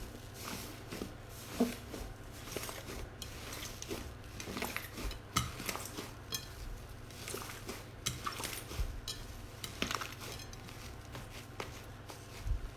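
Slime being squeezed, poked and stretched by hand, giving many irregular small wet clicks and pops.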